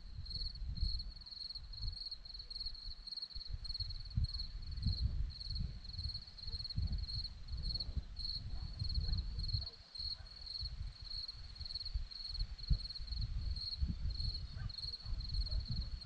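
Crickets chirping in a steady run of evenly spaced, high-pitched chirps, with gusts of wind rumbling on the microphone.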